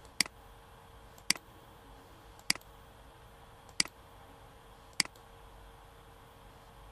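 Five sharp computer-mouse clicks, roughly one every 1.2 seconds, over a faint steady hum.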